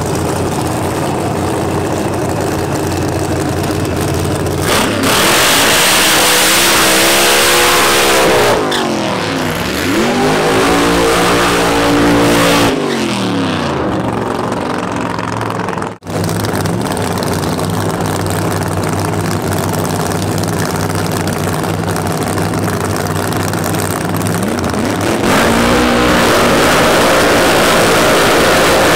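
Top Alcohol Funny Car engines, supercharged methanol-burning V8s, running loud. A burnout's tyre noise comes in about five seconds in, then the revs drop and climb again in long sweeps. After a short break the engines run steadily, and near the end one revs up again.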